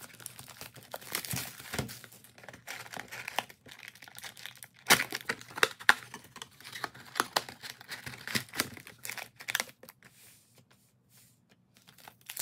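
Plastic shrink wrap crinkling and tearing as it is stripped off a cardboard trading-card box, in irregular crackles with the sharpest ones about five and six seconds in. The sound dies away near the end.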